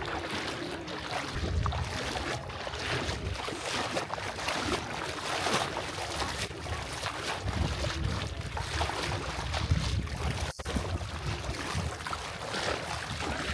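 Wind gusting on the microphone over a steady rush of water, with a split-second gap about ten and a half seconds in.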